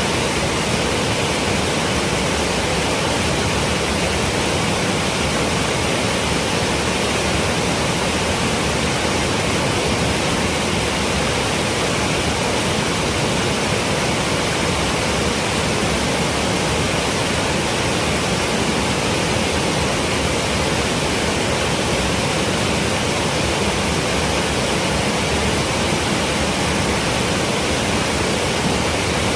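Waterfall, water crashing down in a steady, unbroken roar.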